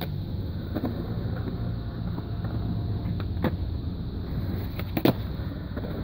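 Skateboard rolling on a concrete skatepark: a steady low rumble with a few sharp clacks of the board, the loudest about five seconds in.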